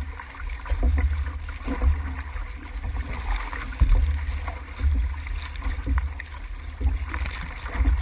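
Water rushing and splashing along the hull of a six-person outrigger canoe under way, with a heavy rumble that swells about once a second.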